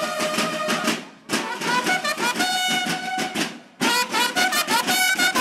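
Uniformed marching band of brass horns and drums playing: the horns sound held notes in phrases over a steady drum beat, with two brief breaks between phrases.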